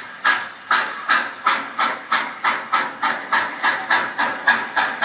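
Steam locomotive exhaust chuffing, the beats quickening steadily from about two and a half to about four a second as the engine gathers speed.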